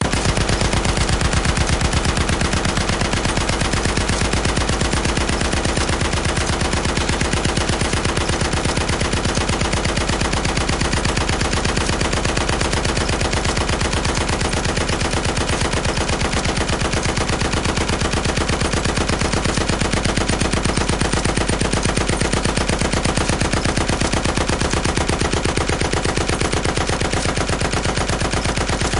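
Machine gun sound effect: sustained automatic fire, a rapid and even stream of shots that never pauses.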